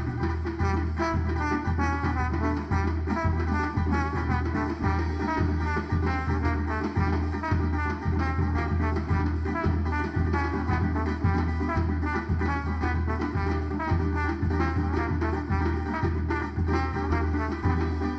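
Live band playing an instrumental break between sung verses: horns carry the melody over a steady bass line and a regular drum beat.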